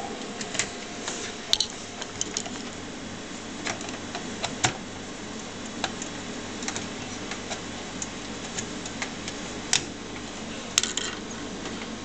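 Irregular light clicks and knocks of a Galaxy GeForce 9500 GT graphics card's metal bracket and circuit board tapping against a steel computer case and its expansion slot as the card is lined up, with a few sharper clacks among them.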